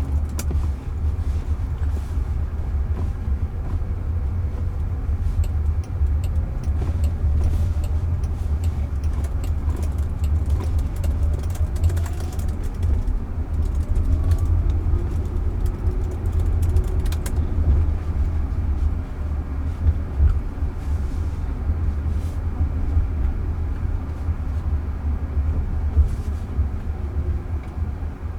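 Road and tyre noise inside a moving Waymo robotaxi's cabin: a steady low rumble, with a faint rising whine around the middle and a few light clicks.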